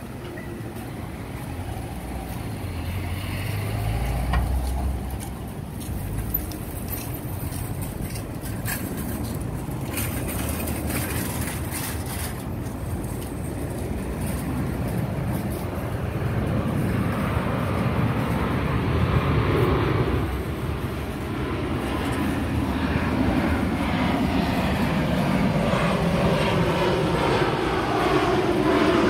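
Boeing 737-800's CFM56-7B turbofans on landing approach: a jet rumble and whine that grows steadily louder as the airliner nears, with gliding tones in the last few seconds. Road traffic adds a low rumble early on.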